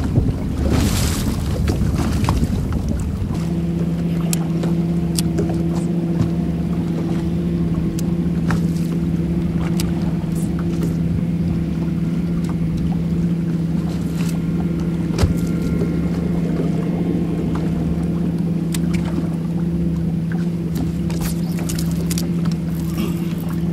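A boat motor running with a steady hum that comes in about three seconds in, over wind and water noise, with a few short clicks now and then.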